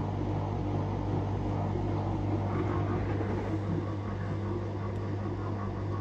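Old front-loading washing machine mid-wash, the drum turning with water and cloth rags sloshing inside, over a steady motor hum.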